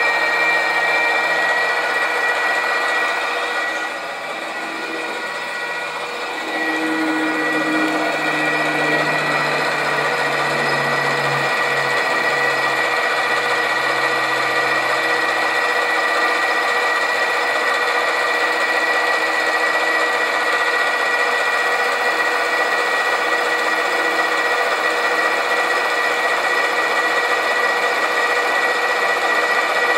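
Sieg SC4 metal lathe running steadily with a high, even whine while a 3/16-inch stainless steel rod is turned down in light cuts. The sound drops about four seconds in and comes back about two seconds later.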